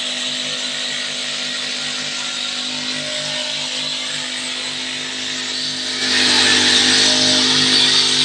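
Petrol brush cutter with a string trimmer head running steadily while cutting grass; it gets louder about six seconds in.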